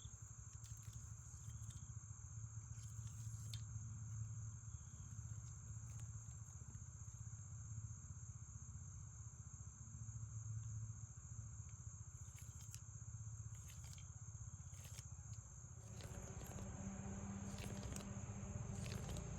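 Steady high-pitched chirring of insects, like crickets, over a faint low hum, with a few light clicks and some handling or rustling noise near the end.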